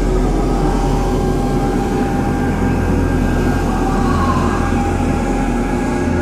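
Steady, low rumbling drone with several held tones above it, a horror-style ambient drone.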